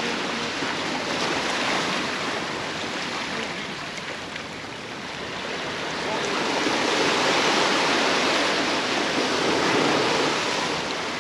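Sea surf breaking and washing up the beach, a steady rush that swells again about six seconds in and eases off near the end.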